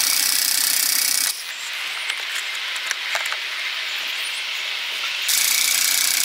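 Yamaha XJ900 Diversion's four-cylinder engine being cranked on the electric starter without firing: a burst of cranking of about a second and a half, a pause with a few light clicks, then a second burst near the end. The engine turns over but will not start.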